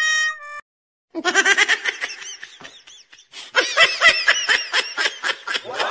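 High-pitched laughter in quick repeated bursts, starting about a second in, dipping briefly around the middle and then picking up again. A steady held tone cuts off about half a second in.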